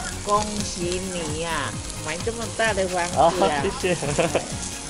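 Chicken sizzling on a barbecue grill as it cooks, with people's voices chattering over it.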